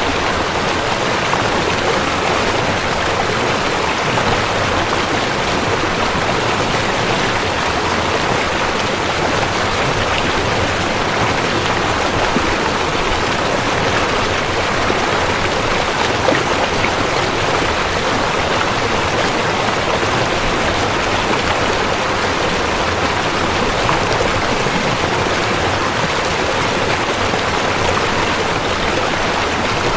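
Rushing river: a steady, unbroken rush of flowing water, even in level throughout.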